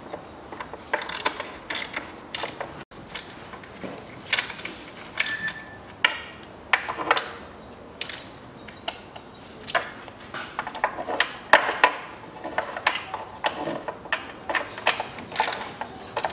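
Ratchet wrench clicking in short runs with brief pauses between them as the 10 mm intake manifold bolts are run down and snugged.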